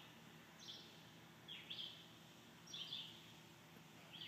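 Faint bird calls: a short high chirp repeated about once a second, four times, over quiet woodland background.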